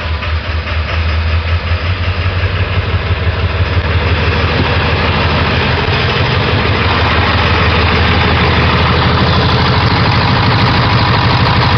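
Ford 7.3 Power Stroke V8 turbo-diesel running just after it finally started from a long crank, with a new fuel injector fitted. It grows steadily louder over the first few seconds, then runs steady.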